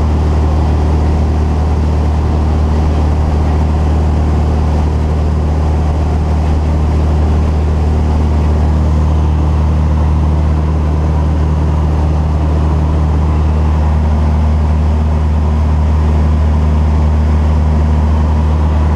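Van's RV-8 light aircraft's piston engine and propeller droning steadily in flight, heard from inside the cockpit as a loud, even, deep hum.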